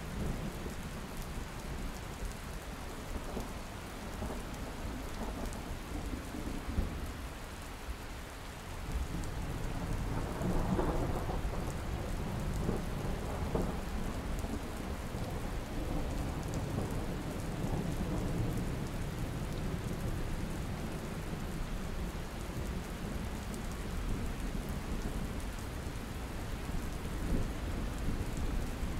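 Steady rain with low rumbling thunder. A longer roll of thunder swells about ten seconds in and rumbles on for several seconds.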